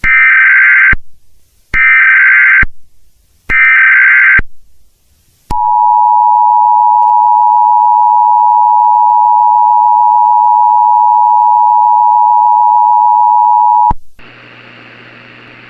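Three loud bursts of EAS SAME header data, each about a second long, then the two-tone EAS attention signal held steady for about eight seconds. It cuts off into a steady hiss with a low hum.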